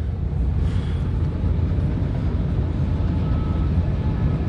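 Steady low rumble of highway traffic, a flatbed semi-truck going by.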